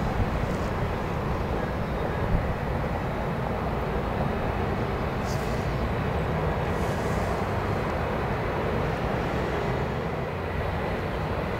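Boeing 737-700's CFM56-7 turbofan engines running steadily at low power as the jet taxis away: an even rumble and rush with a faint steady high whine.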